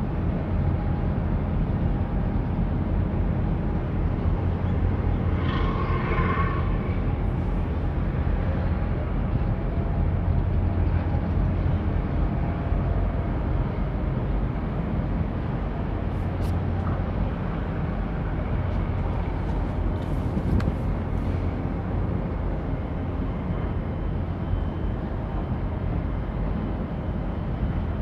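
Steady low engine rumble from the cargo ship and the tug working alongside it, with a short higher-pitched sound about six seconds in.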